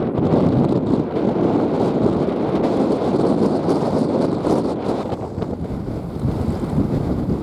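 Wind buffeting the microphone: a steady, loud, rumbling rush with no tones or rhythm, easing slightly about five seconds in.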